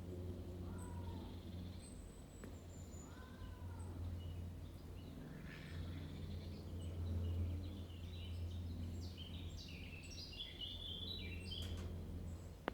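A domestic cat meowing twice in the first few seconds, each meow rising and falling. In the second half, birds chirp with short high notes, over a steady low hum.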